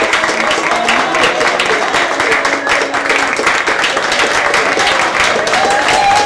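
Audience applauding steadily, many hands clapping, during a theatre curtain call.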